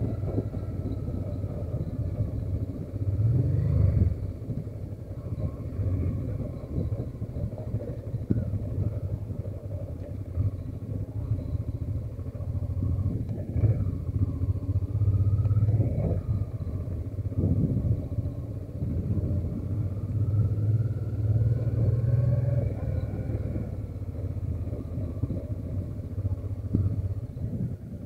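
Honda XRV750 Africa Twin's 750 cc V-twin engine running as the motorcycle rides along, its note swelling several times as the throttle opens.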